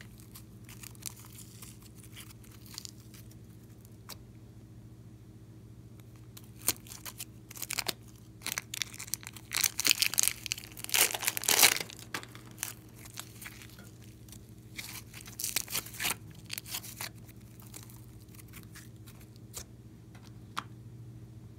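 Glossy slime being handled: a plastic bag crinkling as slime is squeezed out of it, and sticky slime pulling apart and squishing. The crackly noise comes in bunches, loudest around the middle, with quieter gaps between, over a faint steady hum.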